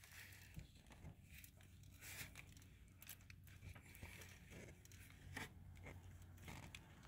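Near silence, with faint scattered rustles and clicks of gloved hands handling a rubber coolant hose and its spring clamp.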